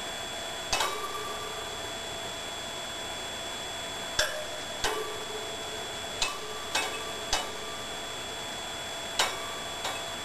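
Small brass bell struck by a budgerigar at irregular intervals: about eight sharp dings, each with a short ring.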